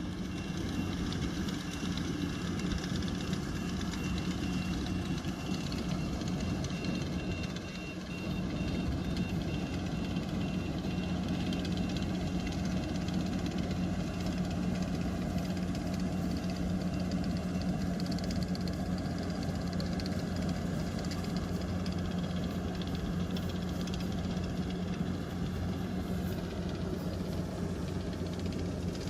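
Rice combine harvester's engine running steadily, with a brief dip in level about eight seconds in.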